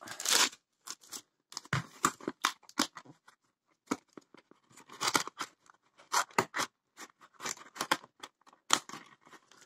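Cardboard box and plastic packaging being handled as a diamond-painting piece is worked back into its box: a string of short, irregular crinkles, taps and scrapes.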